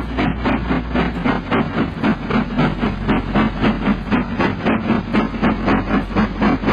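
Steam-locomotive chuffing at a quick, even beat, each exhaust beat a sharp puff, running steadily at speed.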